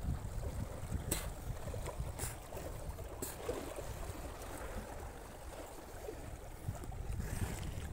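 Wind rumbling on the microphone by the sea, with faint water movement and three light clicks about a second apart in the first few seconds.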